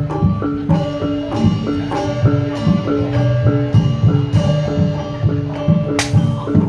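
Javanese gamelan music: bronze metallophones strike a repeating melody in a steady pulse over drum strokes, with a single sharp crack about six seconds in.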